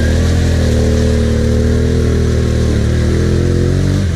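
ATV (quad) engine held at high, steady revs, driving through deep mud, with the pitch wavering only slightly. The engine note breaks off at the very end.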